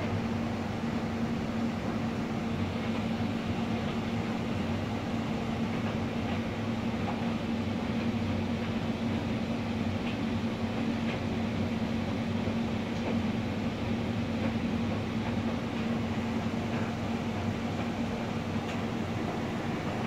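Steady hum of laundry machines running: an even rumble with a constant low tone, unchanging throughout.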